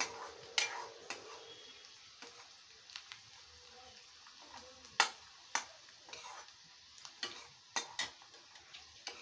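Long metal spoon stirring and scraping in a metal kadai, with irregular clinks against the pan, the loudest about five seconds in. Under it, chopped onions and green chillies give a soft steady sizzle as they fry in oil.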